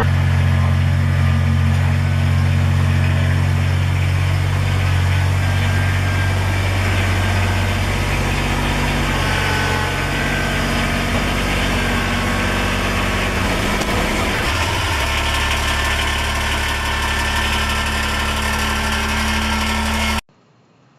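Kubota sub-compact tractor's diesel engine running steadily under way, its note shifting a little in pitch about a third and two-thirds of the way through as the tractor creeps forward. The sound cuts off suddenly about a second before the end.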